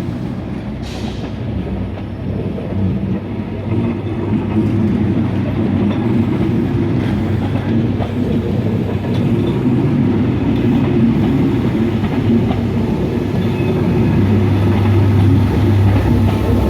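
Departing passenger train with a Class 67 diesel locomotive pushing at the rear: wheels clicking over rail joints while the locomotive's two-stroke V12 diesel drones louder as it approaches. The low engine drone swells sharply near the end.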